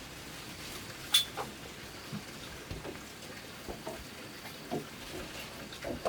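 Scattered light knocks and clicks of handwork, with one sharp click about a second in and softer taps after it.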